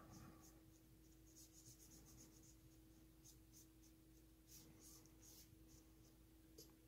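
Faint, irregular strokes of a paintbrush working stain onto small wooden dowel pieces, over a faint steady hum.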